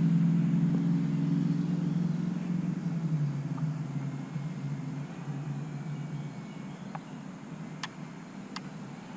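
DJI Mini 2 quadcopter's propellers humming in a steady, low multi-tone drone that fades gradually as it flies away. A few faint clicks come near the end.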